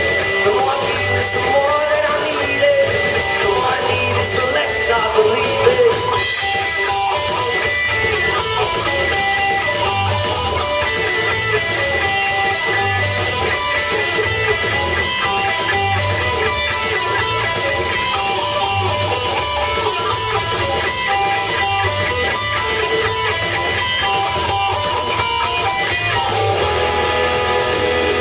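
Live rock band playing a mostly instrumental, guitar-led passage: electric guitars over bass and drums, with long held notes ringing above.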